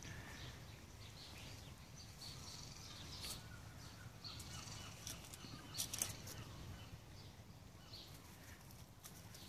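Ferrets scrabbling and rustling as they move over gravel, through leafy plants and along corrugated plastic drainage pipe: a few faint, light scuffs and clicks over quiet outdoor background.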